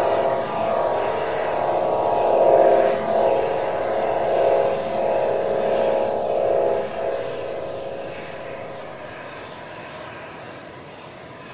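A steady engine drone with several held tones, fading away over the last few seconds.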